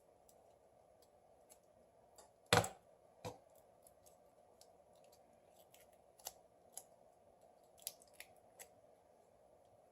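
Scattered small clicks and taps of tools and smartphone parts being handled during a repair, the loudest a sharp knock about two and a half seconds in, over a faint steady hum.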